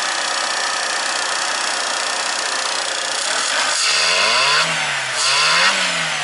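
VW Polo's single-point-injection petrol engine idling steadily, then revved twice by hand at the throttle body, each rev rising and dropping back to idle. It runs cleanly and holds idle, no longer stalling after starting.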